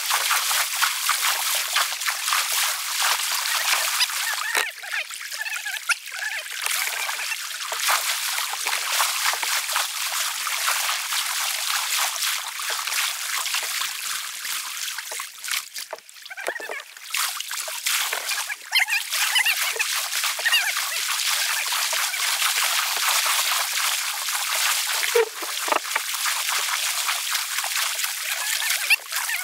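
Steady rush of river rapids, with some splashing close by.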